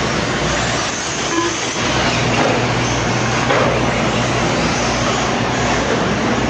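Electric 1/8-scale RC truggies racing on a dirt track: a steady rush of noise, with high motor whines rising and falling as the trucks speed up and brake.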